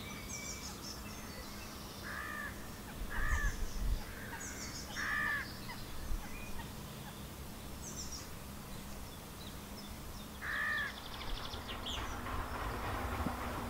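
Wild birds in trees: a crow caws four times, short harsh calls, among small songbirds chirping and twittering. A low rushing noise builds in the last second or two.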